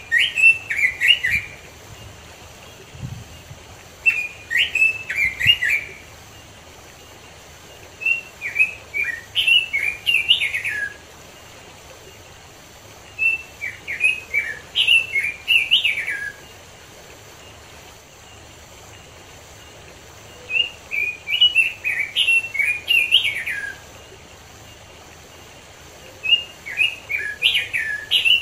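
Red-billed leiothrix (Pekin robin) singing: six rich warbling phrases of rapid rising and falling notes, each two to three seconds long, with pauses of two to four seconds between them.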